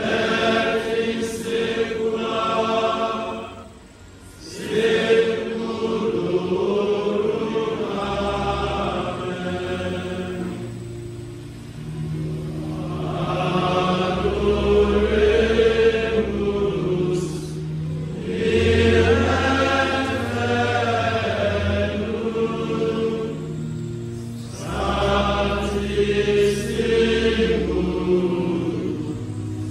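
A group of voices chanting a slow hymn in long phrases, with a short breath pause about four seconds in. Sustained low accompaniment notes change step by step beneath the voices from about a third of the way through.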